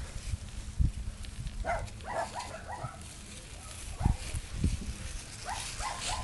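A puppy whimpering in short, high yips, a cluster of several about two seconds in and another near the end. A few dull low thumps sound in between.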